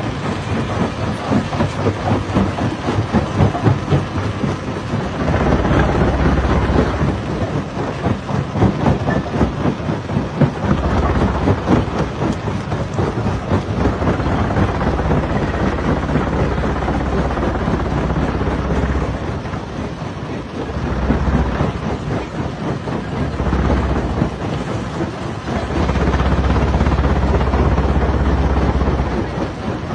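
Hammer stone crusher running and breaking rocks: a dense clatter of stone being smashed over a deep rumble that swells for several stretches and eases between them.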